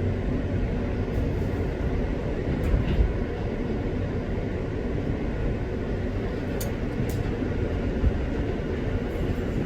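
Rail car in motion, likely a subway train: a steady low rumble, with two brief high-pitched sounds about two-thirds of the way through.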